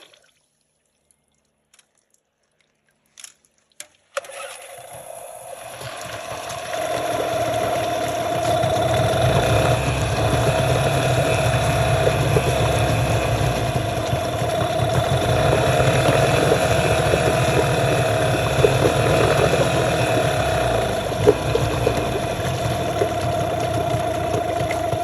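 About four seconds of near silence broken by a couple of faint clicks, then a 15 hp Yamaha outboard motor comes in and runs steadily, a low rumble with a steady whine over it.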